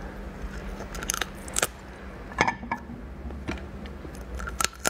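Hard shell of a raw mantis shrimp cracking as it is bitten and pulled apart by hand: a series of sharp, irregular cracks and snaps.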